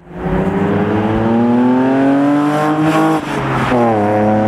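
Car engine accelerating hard. Its pitch rises steadily for about three seconds, drops briefly at a gear change, then climbs again and holds.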